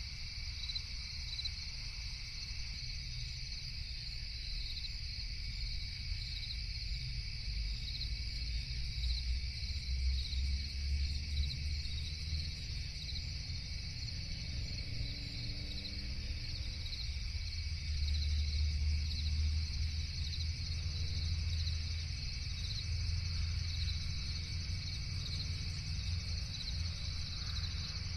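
Crickets chirping in a steady, continuous night chorus of high trills over a low rumble.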